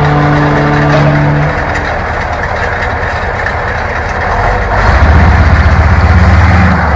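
Heavy 6x6 off-road truck's diesel engine running with a rough, broad rumble. A held tone fades out in the first second and a half. About five seconds in, the engine grows louder into a fast, deep throb.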